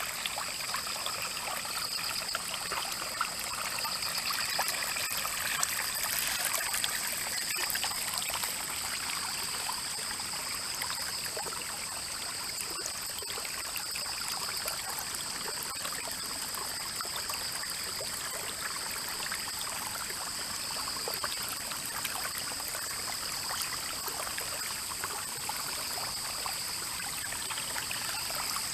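A small rain-fed stream flowing and trickling, a steady rush of water, with two thin, steady, high-pitched tones above it.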